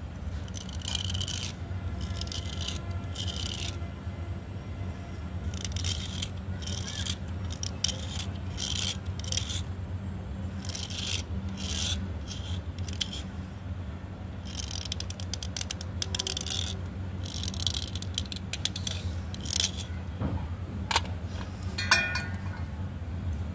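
A small blade scraping along a wet slate pencil in repeated short strokes, shaving off its soft coating. There are a couple of sharp clinks near the end as the pencil is set down on the steel plate, with a steady low hum underneath throughout.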